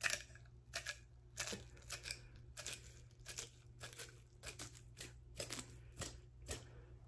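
Faint, irregular crackly clicks, about two a second: a lizard's jaws working on a whole egg held in its mouth, shell clicking against teeth.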